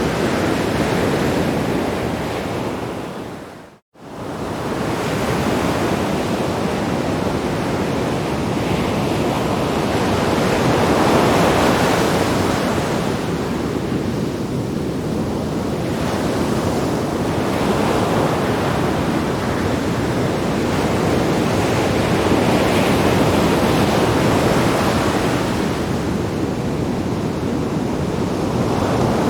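Sea waves breaking on rocks: continuous surf with a swell of louder wash every five to six seconds. The sound fades out to silence for a moment about four seconds in, then comes straight back.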